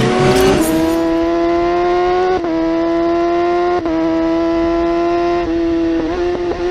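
Car engine held at high revs. Its pitch climbs in the first half-second, then holds steady, with brief dips like gear changes three times, a second or two apart.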